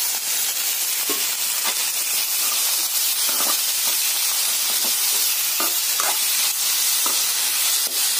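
Onions, garlic and chopped tomatoes sizzling in hot oil in an aluminium kadai. A metal spoon stirring them scrapes and knocks against the pan every second or so over the steady hiss.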